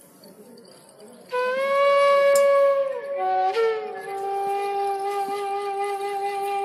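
Slow meditative flute music. After about a second of near-quiet, one long held note bends downward, and then a lower long note is held.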